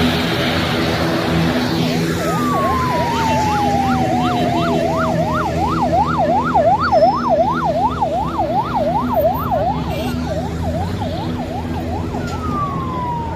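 Airport fire trucks' sirens: a fast yelp, about four cycles a second, sounds from about two seconds in and fades near ten seconds, overlapped by a falling wail at first and followed by another falling wail near the end. A steady low engine hum runs underneath.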